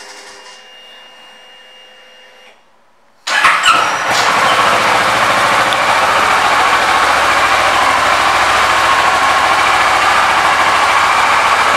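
Kawasaki ER-6n's 649 cc parallel-twin engine starting about three seconds in, swelling briefly as it catches, then settling into a steady idle.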